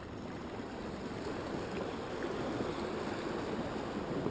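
Ocean surf washing against the shore: a steady rushing noise that builds slightly over the first few seconds.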